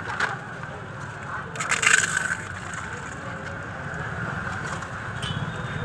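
Steady low street-traffic rumble, with a brief crackly crunch about two seconds in as crisp fuchka (puri) shells are crumbled by hand over a plate.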